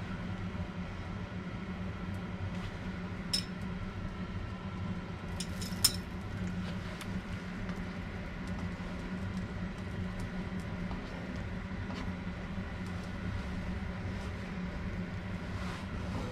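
Steady low hum with a few sharp clinks of kitchenware: one about three seconds in and a small cluster around six seconds, the last of them the loudest.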